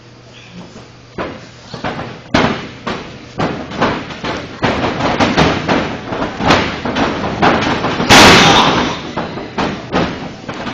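Wrestling ring taking repeated thuds and slaps as wrestlers run and hit the canvas, with one very loud crash about eight seconds in as a body slams down onto the mat.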